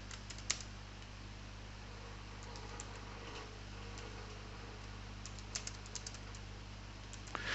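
Faint, scattered clicks of computer keys, a few at a time with gaps between, over a steady low electrical hum.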